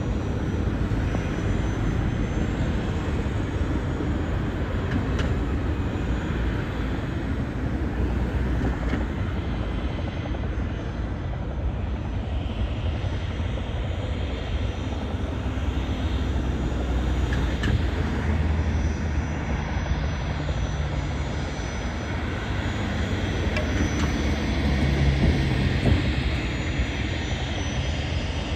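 Cessna Citation Latitude business jet taxiing, its twin Pratt & Whitney Canada PW306D turbofans running steadily at taxi power, swelling slightly near the end as it turns toward the runway.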